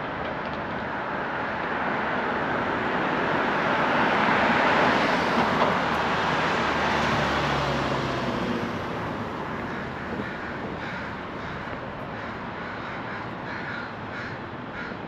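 Street traffic passing, swelling to a peak about halfway through and fading, with a low engine hum as it goes by. In the second half a crow caws repeatedly in short, evenly spaced calls.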